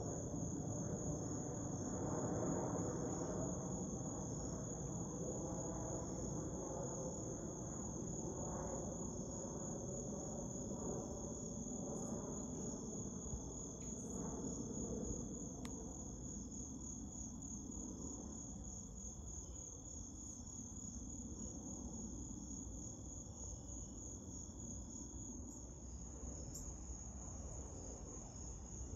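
Jet airliner's engines rumbling as it passes overhead, with a faint whine gliding slowly down in pitch and the rumble easing off in the second half. Behind it, insects keep up a steady high trill.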